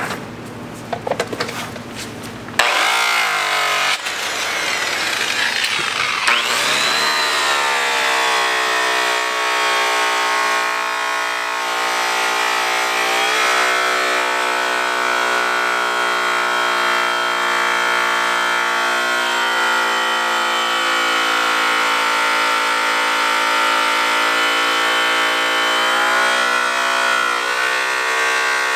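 Electric rotary buffer switched on about two and a half seconds in, after a few handling clicks. It spins up with a rising whine, then runs steadily, its pitch dipping slightly now and then as the yellow buff is pressed onto the aluminum wheel's outer lip. This is the coloring pass, the final polish with rouge.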